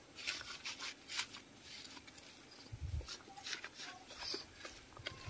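Fingers mixing a spice marinade on a banana leaf: faint, irregular rustling and squishing, with a brief low bump about three seconds in.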